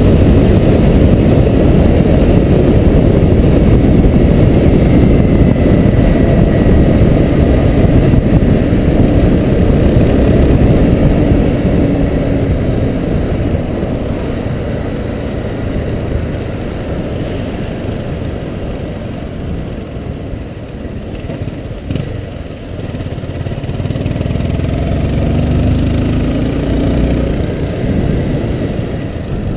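Honda CBR250R single-cylinder engine running on the move, under heavy wind rumble on the camera microphone. The wind eases about halfway through as the bike slows. Near the end the engine note comes through more clearly and rises as it pulls away again.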